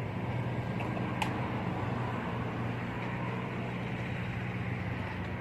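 Steady low mechanical hum like a running engine, with a single short click a little over a second in.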